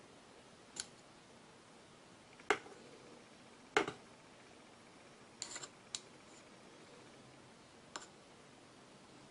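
Chopsticks clicking and tapping against a ceramic plate and porcelain spoon while picking up pieces of food: a handful of sharp, separate clicks, with a quick cluster of three a little past the middle.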